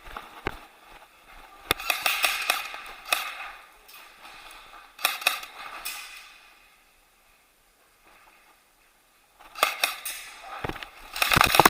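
Airsoft guns firing in short runs of sharp cracks and clicks, in clusters a few seconds apart with a quiet stretch in between.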